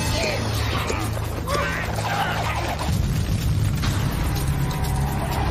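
Cartoon soundtrack: a continuous deep rumble that grows heavier about three seconds in, with short squealing cries over it in the first couple of seconds.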